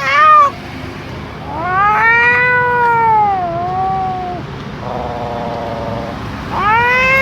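Long, drawn-out animal cries whose pitch rises and then falls: a short cry at the start, a long one of about three seconds, a brief steady buzzing tone, then another long cry near the end.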